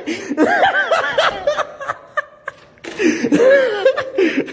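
High-pitched laughter in two spells, with a quieter pause of about a second in the middle.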